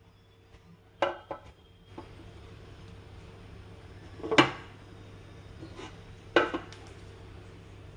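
Hard kitchenware knocking and clattering while being handled: a double knock about a second in, a loud clack in the middle and another pair near the end, over a faint steady hum.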